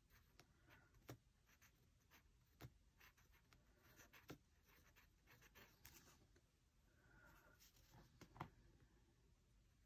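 Faint scratching of an extra-fine fountain pen nib, a Kaweco Sport, writing words on planner paper, with scattered small ticks as the nib touches down and lifts. The sharpest tick comes about eight seconds in.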